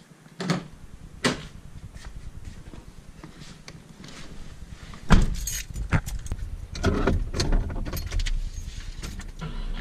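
Car door being opened and then shut. There are two sharp clicks from the handle and latch in the first second or so, a heavy thump as the door closes about five seconds in, then small clicks and a keys-jangling rattle inside the cabin.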